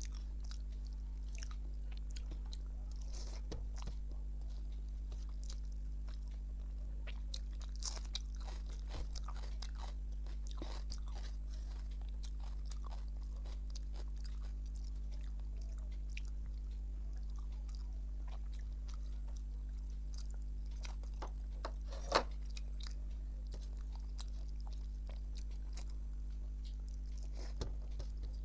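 Close-up eating sounds: a person chewing and biting a meal of rice, dal, fish and fried brinjal, with scattered small crunches and wet clicks, over a steady low electrical hum. One sharper, louder click comes about two-thirds of the way through.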